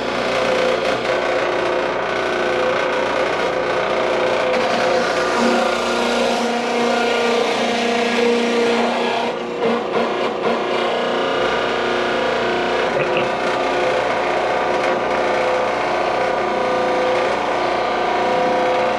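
Electric meat grinder running steadily under load, grinding peeled yautía (tannia root) into a mash. Its motor hum dips and wavers briefly about halfway through.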